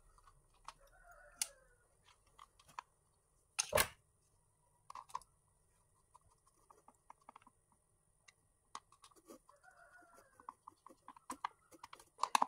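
Small scattered clicks and taps of a screwdriver working a screw into a refrigerator fan motor's plastic bracket, with one louder knock about four seconds in. A rooster crows faintly twice, near the start and near the end.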